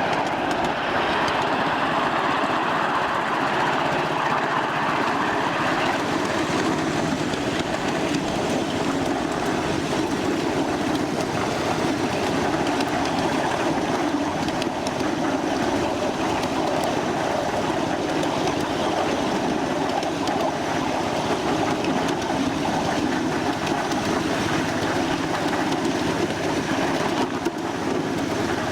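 A 1/8-scale ridable miniature train running along its track: a steady rumble of wheels on the rails.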